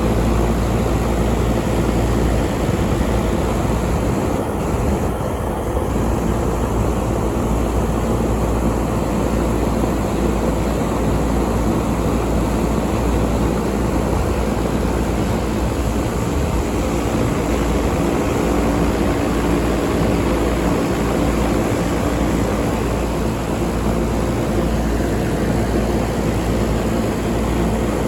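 Large 5-ton York air conditioner running steadily: an even rush of moving air over a constant low hum.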